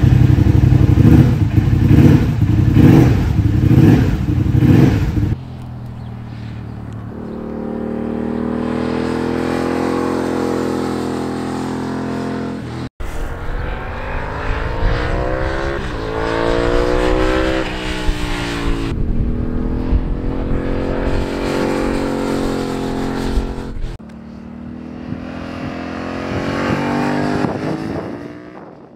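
Turbocharged Yamaha R7's 689 cc CP2 parallel-twin with a Garrett turbo, revved hard in short loud bursts on its stand for the first five seconds. It is then heard out on track over several passes, its pitch climbing and falling as the rider accelerates and shifts.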